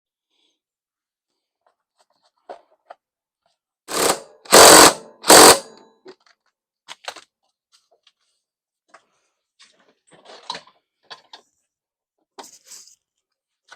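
Power impact tool run in three short bursts, driving on a big nut, followed by a few light clicks of tools and parts being handled.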